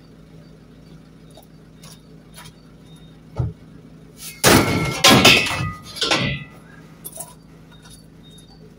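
A long rusty steel bar is slid into a van's load bay over other scrap metal. A knock comes about three and a half seconds in, then there are a couple of seconds of loud metal scraping and clanking with a ringing note.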